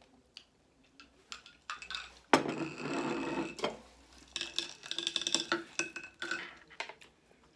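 Close-miked eating and table sounds: scattered small clicks as kebab meat is torn and food is handled by hand, with a sudden burst of paper-napkin rustling about two seconds in and more short rustles and clicks after it.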